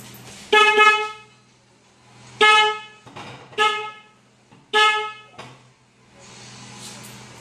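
Suzuki Raider 150 motorcycle's electric horn beeping four times in short blasts. It sounds normally after a repair to a lost contact in the horn circuit.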